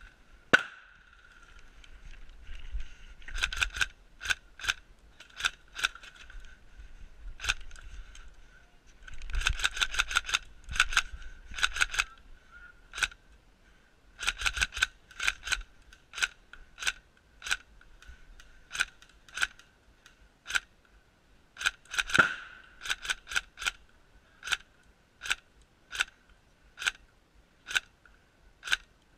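Airsoft guns firing: sharp cracking shots, some in quick bursts about a third of the way in, others single shots roughly every half second to second later on.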